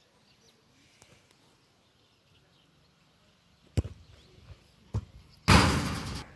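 A football kicked with a sharp thud about four seconds in, a second smaller knock about a second later, then a loud rattling crash that fades within a second.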